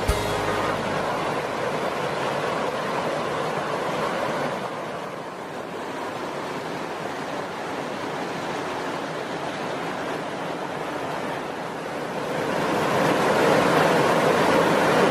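Rushing water of a mountain stream cascading over boulders below a waterfall, a steady rush that grows louder near the end.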